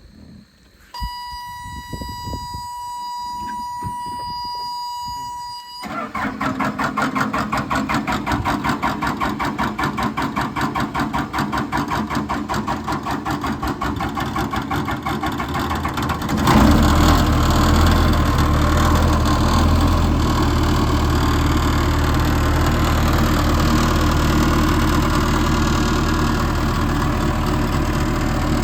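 A steady electronic buzzer tone for about five seconds. Then the Case 1845C skid steer's Cummins diesel cranks on the starter with a fast, even pulsing for about ten seconds, catches, and settles into a steady run. This is the restart after a fuel filter change and hand priming of the fuel system.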